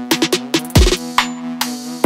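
Background electronic music with a drum-machine beat: sharp drum hits and a deep kick that drops in pitch, over a held synth tone.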